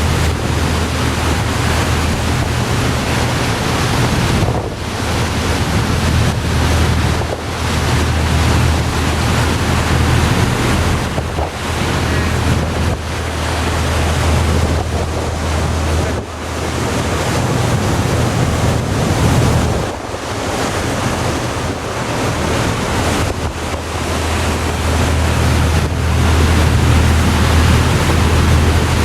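Wind buffeting the microphone on a ferry, over the rush of the sea and a steady low drone from the ship's engines.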